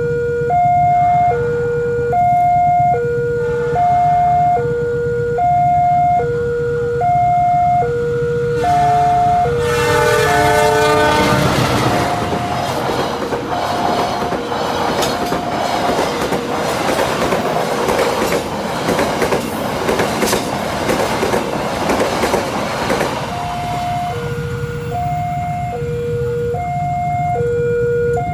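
Level-crossing warning alarm sounding a steady two-tone electronic ding-dong, a high and a low tone alternating. About nine seconds in a locomotive horn sounds for a couple of seconds, then a passenger train rushes past for about twelve seconds with wheel clatter over the rails, after which the alarm carries on alone.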